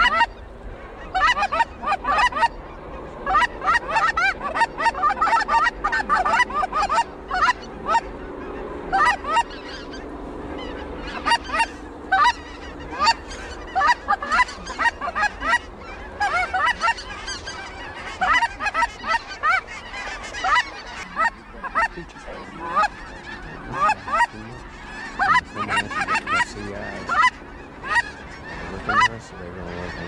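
Geese honking: a dense, continuous chorus of many short overlapping calls.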